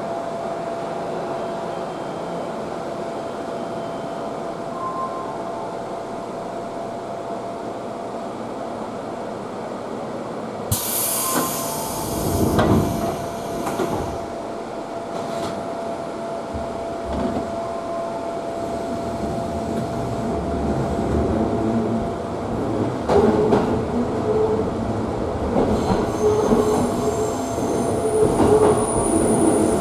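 JR Tsurumi Line commuter electric train running, heard from inside the car as a steady rumble with a thin hum. About eleven seconds in comes a sudden hissing burst. In the last few seconds the wheels squeal in high pitched tones, as on a curve.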